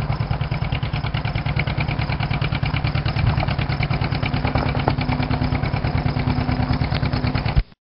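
1943 John Deere H's two-cylinder engine pulling a plow under load, its exhaust popping in a steady, rapid, even beat. The sound cuts off suddenly near the end.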